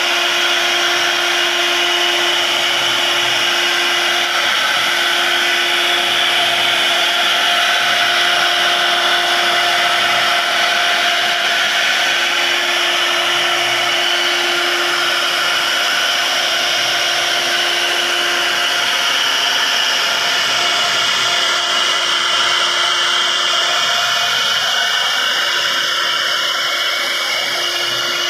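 A CNC wood router's spindle runs at a steady high speed, a constant whine over the hiss of the bit cutting into wood.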